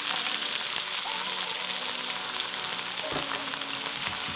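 Peppers and snow peas sizzling steadily in a hot frying pan as hot water is poured in to deglaze it, then stirred with a wooden spatula, with a couple of soft knocks against the pan in the second half.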